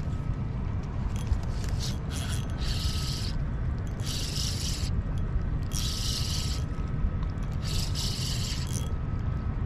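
Spinning reel cranked in four short bursts, each a brief whirring hiss, as line is wound in. Steady wind rumble on the microphone underneath.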